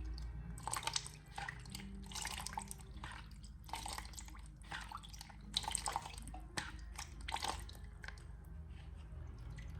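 Close-miked wet, squishy ASMR sounds coming in short, irregular bursts about once a second, over a low steady hum.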